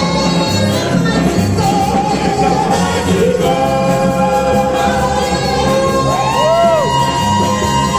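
A woman singing a gospel song into a microphone over backing music with a steady beat, holding long notes and swooping up and down in pitch about six seconds in.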